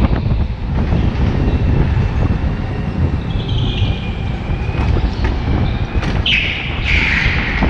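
Go-kart running flat out, heard onboard as a steady low rumble, with tyres squealing on the smooth track surface in a sharp turn near the end.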